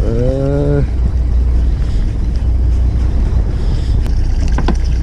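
Steady low rumble of the fishing boat's engine, with wind noise on the microphone. A short voiced sound with rising pitch comes in the first second, and a few light clicks come near the end.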